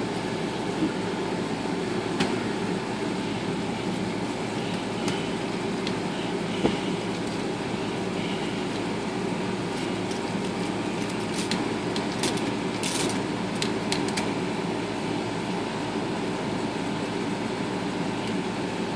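Steady machine drone, like a shop compressor or fan, with scattered light clicks and taps and a few short hisses about two-thirds of the way in.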